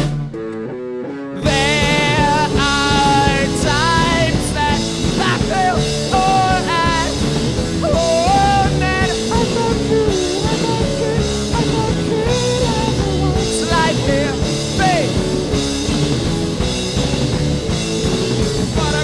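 Rock band playing live in an instrumental passage: a bending, wavering lead melody over bass and drums. For the first second and a half only a thin part plays with the low end dropped out, then the full band crashes back in.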